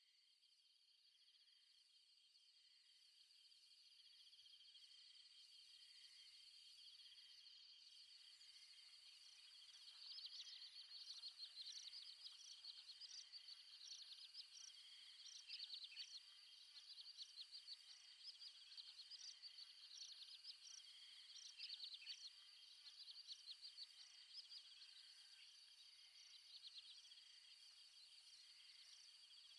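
A high, steady insect chorus, fading in over the first few seconds. About ten seconds in, a rapid, louder high chirping joins it and comes and goes in bouts.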